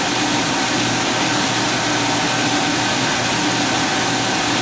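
Commercial dishwasher running its wash cycle: a steady hiss of spraying water over the even hum of the wash pump motor.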